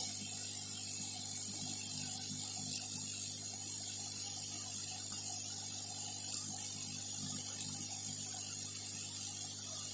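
Steady low machine hum with a faint high whine, and one small click about six seconds in.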